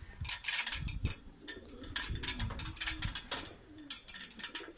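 Domestic pigeons cooing in short low calls, mixed with many brief scratchy clicks and rustles.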